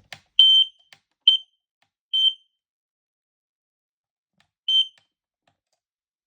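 Ei208 carbon monoxide alarm's sounder giving short high-pitched beeps as it is set to download its data to the AudioLink app: three beeps about a second apart, the first a little longer, then a fourth after a pause of about two and a half seconds.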